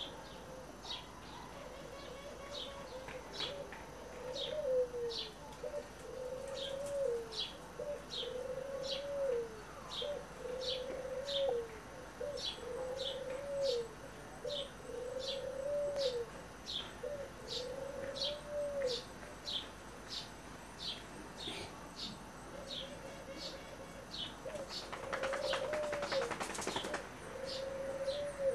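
A dove cooing, a string of arched low coos about every second and a half that pauses for a few seconds and resumes near the end, over short high bird chirps repeating about three every two seconds. A brief rustling burst comes near the end.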